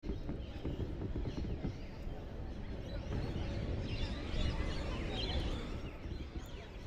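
Outdoor ambience: a steady low rumble of wind on the microphone, with birds chirping over it, busiest in the middle.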